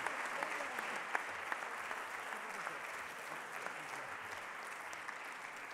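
Audience applauding, a dense patter of clapping that slowly dies away.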